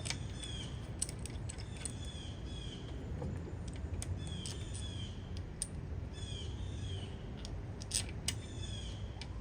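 A bird chirping repeatedly in short falling notes, often two at a time, over a steady low rumble. A few sharp metallic clicks come through as the coil-pack bolts are threaded back in by hand.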